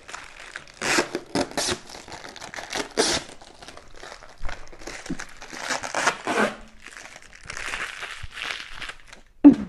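Clear plastic protective film being peeled off and crinkled in the hand, in irregular crackling rustles with short tearing sounds. A brief, louder low sound comes near the end.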